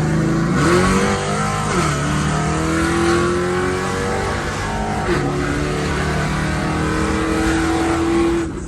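Dodge Charger's V8 engine under hard acceleration, heard from inside the car: its pitch climbs, drops with an upshift about a second and a half in and again about five seconds in, and climbs again until the throttle lifts near the end.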